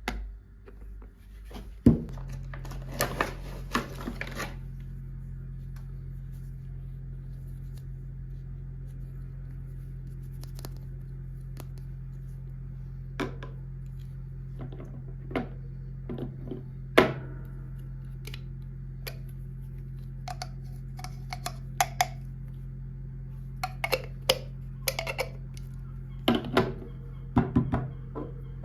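Plastic toys and packaging being handled: scattered sharp clicks and taps, with a burst of rustling about two seconds in and a run of taps near the end, over a steady low hum.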